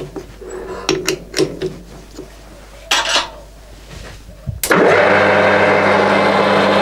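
A few metal clinks and knocks around the lathe's three-jaw chuck and chuck key, then about four and a half seconds in the metal lathe is switched on and its spindle runs with a steady hum.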